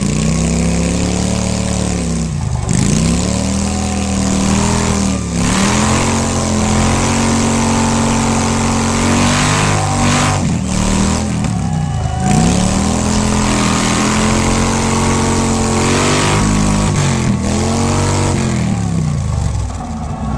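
Bagger motorcycle doing a burnout: the engine is held at high revs and drops and climbs again several times as the rear tyre spins on the stage.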